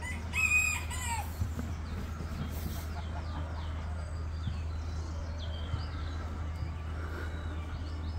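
A rooster crowing once, loud and short, about half a second in, its call dropping in pitch at the end. Fainter bird calls follow a few seconds later.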